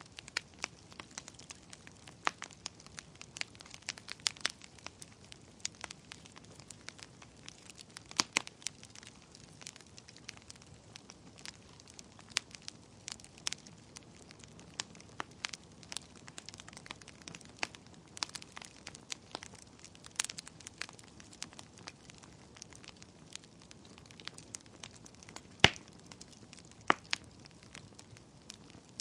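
Wood fire burning in a fireplace, crackling with irregular sharp pops over a faint low hiss; a loud pop near the end.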